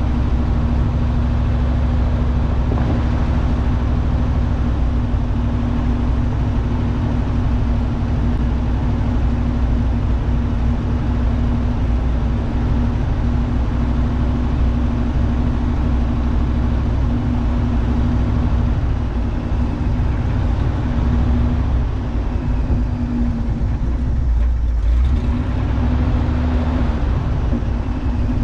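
The engine of a 1968 International Loadstar CO-1700 cabover truck idling steadily. It was started cold on the choke and is running on a new set of spark plugs and plug wires.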